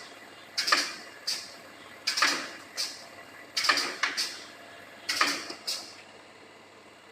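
Automatic pneumatic wire-mesh welding machine cycling: a sharp air-driven clack with a short hiss, then a smaller clack, repeating about every second and a half, four times, falling quiet about six seconds in.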